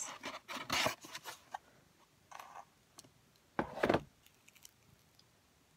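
Handling noises from a cardboard pizza box being shut and moved: short scrapes and rustles, the loudest a brief scrape about three and a half seconds in.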